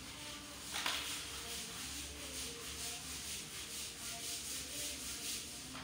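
Stiff brush scrubbing a tiled floor in quick, even back-and-forth strokes, which stop abruptly near the end.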